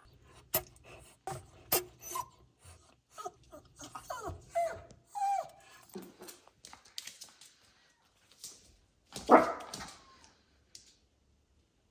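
Maltipoo puppy whimpering and giving short yips, mixed with brief hisses and clicks. The loudest outburst comes about nine seconds in.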